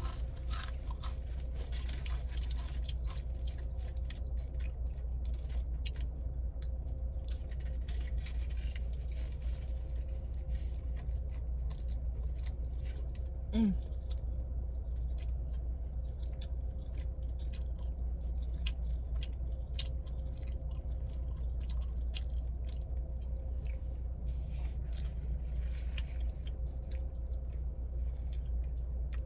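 Close-up chewing of a sub sandwich, with many small crunchy crackles, over a steady low hum. About halfway through a short hum of the eater's voice is the loudest sound.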